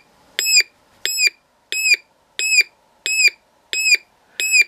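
Homemade three-transistor electronic siren circuit, powered at 3.7 volts, sounding through a signal tracer's loudspeaker: a string of short, unpleasant beeping chirps, each briefly rising then dropping in pitch, about one and a half a second.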